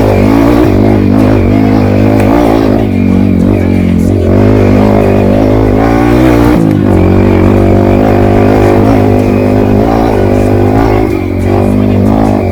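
Trail motorcycle engine revving up and down irregularly, with a steady low drone underneath.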